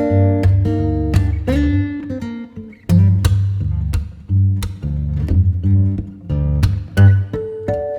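Background music led by plucked acoustic guitar over a steady bass.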